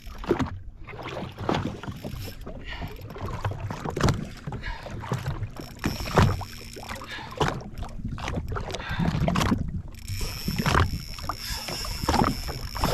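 Water slapping and splashing against a jet ski's hull, with wind on the microphone and a faint steady hum. Near the end a steady high whine comes in as the hooked fish starts to take line off the reel.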